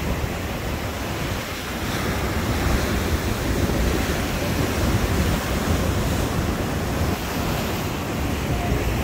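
Sea surf breaking and washing over the rocks below the pier: a steady rushing wash that swells a little about two seconds in, with wind rumbling on the microphone.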